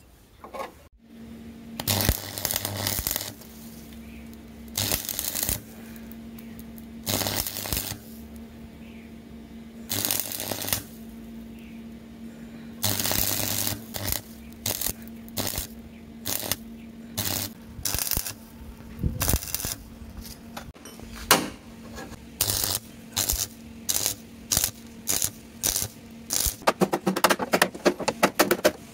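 Stick (arc) welder crackling in a series of short bursts, each about half a second to a second long, as a steel repair patch is tack-welded onto a rusted scooter body panel. The bursts come shorter and quicker near the end, over a steady low hum.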